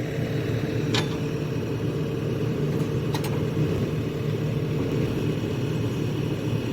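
Excavator's diesel engine running steadily, with a sharp click about a second in and a quick double click a little after three seconds.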